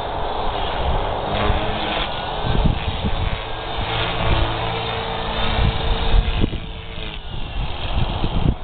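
Radio-controlled helicopter flying through pitch pumps and full collective throws, its rotor and drivetrain running with a steady whine and rough, gusty rotor noise. The collective throws are what bring out the abnormal noise the owner is chasing.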